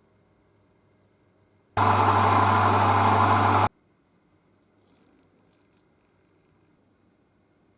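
A loud, steady machine sound with a strong hum, lasting about two seconds and starting and stopping abruptly, followed by a few faint clicks.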